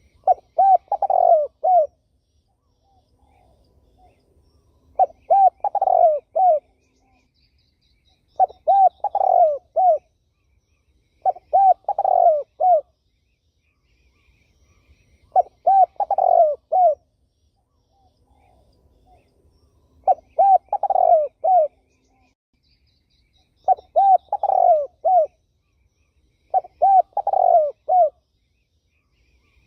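Turtle dove cooing: eight phrases of several quick coo notes, each about a second and a half long, repeated every three to four seconds with short silences between.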